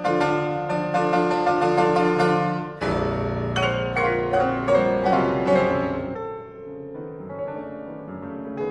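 Solo piano playing dense, loud chords, with a deep bass note struck about three seconds in; the playing grows softer over the last few seconds.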